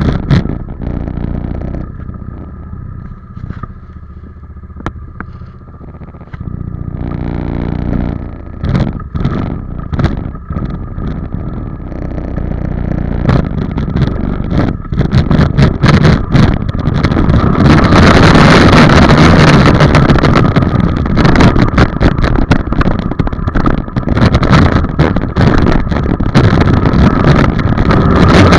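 Dirt bike engine ridden on a dirt track: low and steady for the first several seconds, then revving up and dropping back repeatedly, and held at high throttle, loud, through the last ten seconds or so.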